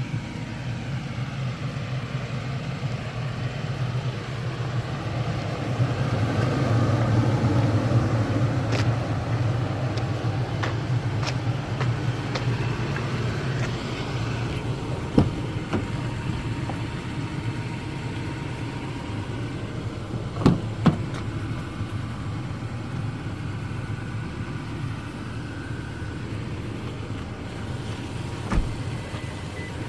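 A vehicle engine running steadily with a low hum, swelling a little several seconds in. A few sharp clicks or knocks are scattered through it.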